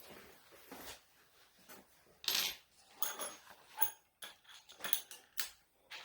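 Loose metal screws clinking and rattling, several short ringing clicks in a row, with a louder rustling scrape about two seconds in.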